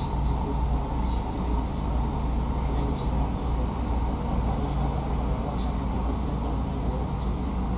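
Interior running sound of a JR East 209 series electric commuter train, heard from inside the motor car: a steady rumble of wheels and running gear with an even hum at a constant pace, and a few light clicks.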